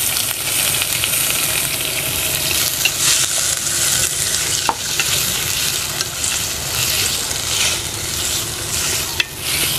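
Sour bamboo shoots sizzling as they are stir-fried in hot oil and garlic in an aluminium pot, stirred with a wooden spatula, with an occasional sharp knock of the spatula on the pot.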